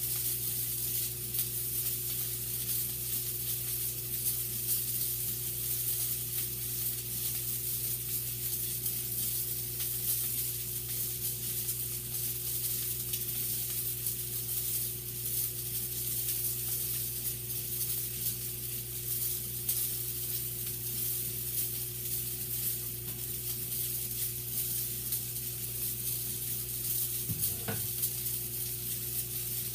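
Sausage sizzling and crackling steadily in a frying pan on the stove, over a steady low hum.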